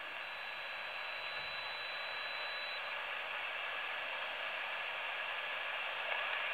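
Steady hiss of band noise from a Ten-Tec SP-325 shortwave receiver in lower-sideband mode on the 40-metre band, tuned where no station is heard. A faint thin high whistle sits in the hiss for the first few seconds.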